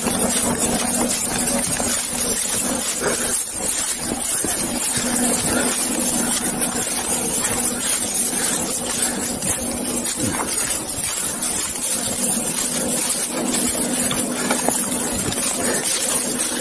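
Steady engine drone of a police helicopter overhead, with a constant low hum and hiss. The handler's footsteps through dry leaf litter tick faintly underneath.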